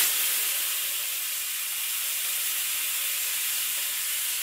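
Food going into a pan of hot oil: a loud sizzle that starts suddenly and holds as a steady hiss of frying and steam.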